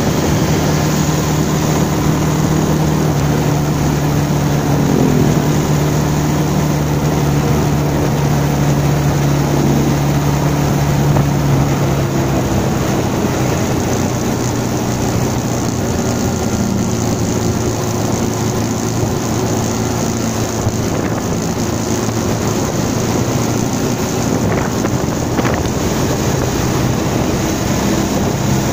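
Bajaj Pulsar 220's single-cylinder engine running steadily at road speed, with wind rushing over the microphone. The engine note drops a little about halfway through as the bike slows.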